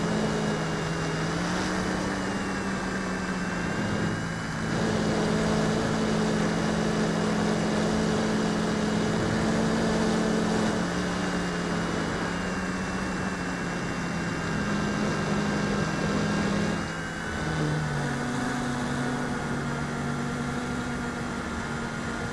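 RC Logger Xtreme quadcopter's motors and 138 mm propellers buzzing steadily in flight. Several props are cracked and the rear left motor is tilted out of line. The pitch shifts with throttle, with brief dips about four seconds in and again near seventeen seconds.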